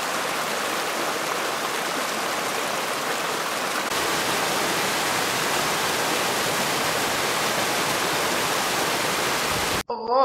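Steady rush of water from a small mountain waterfall cascading over rocks. It gets slightly louder about four seconds in and cuts off suddenly near the end.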